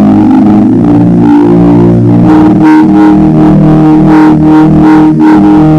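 Background music: sustained chords held steadily, tagged as guitar through effects, with no speech over it.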